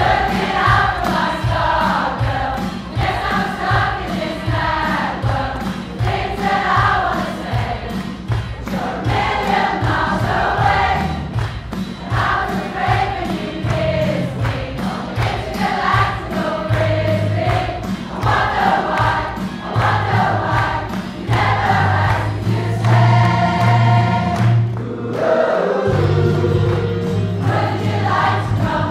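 Large mixed choir, mostly women's voices, singing an upbeat pop song in unison and harmony over a steady beat.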